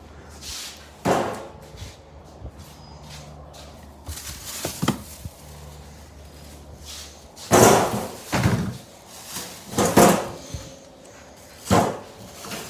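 Plastic shopping bag rustling and crinkling in bursts as it is handled, with a few knocks of objects being moved about.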